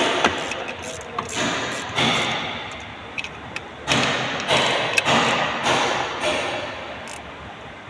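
Irregular knocks and thuds, each followed by a short swell of noise that fades, from hands-on work on a car in a workshop.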